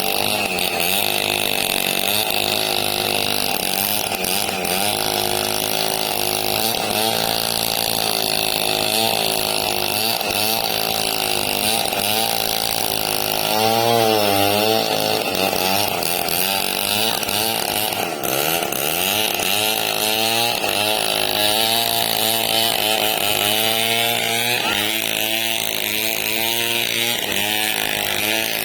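Two-stroke chainsaw running while cutting through a large log, its engine pitch rising and falling continuously as the chain bites into the wood.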